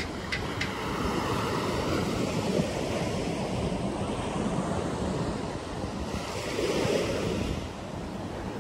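Small sea waves washing in on a sandy beach, swelling about a second in and again near the end, with wind buffeting the microphone.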